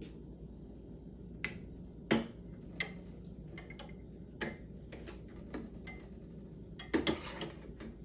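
Scattered clinks and knocks of glassware set down on the stainless steel drip tray of an espresso machine, with clicks of its buttons being pressed, over a low steady hum. The loudest knock comes about two seconds in and a quick run of clinks near the end.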